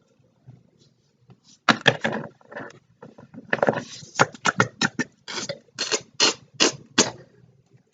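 Small plastic toys being handled, giving a run of light clicks and knocks. A few come about two seconds in, then a quicker run of about three a second in the second half.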